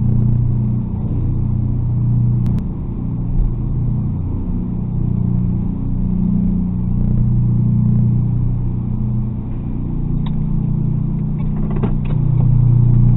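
Car engine and road noise heard from inside the cabin while driving: a steady low drone, with a few light clicks near the end.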